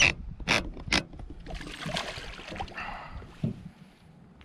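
Hooked smallmouth bass splashing at the surface beside the boat as it is reeled in. Three sharp sounds come in the first second, then a longer spell of splashing starts about a second and a half in.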